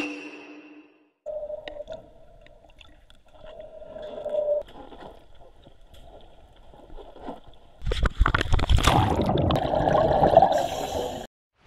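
Water heard underwater through a camera: faint muffled gurgling with a low hum, then, about eight seconds in, a much louder rush of a scuba diver's exhaled bubbles that cuts off abruptly near the end.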